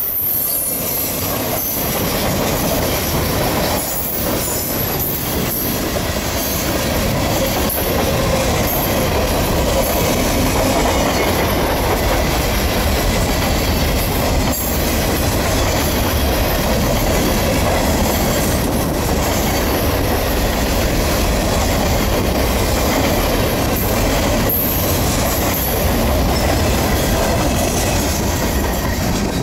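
Freight cars of a Wisconsin Southern train rolling past: a steady, loud rumble of steel wheels on rail, with a few short knocks along the way.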